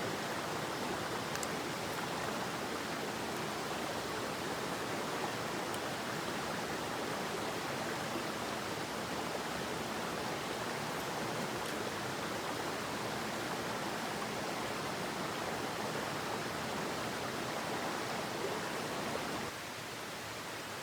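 Steady rushing of a mountain stream. Faint clicks sit over it in the first seconds, and about nineteen and a half seconds in it cuts abruptly to a quieter, even hiss.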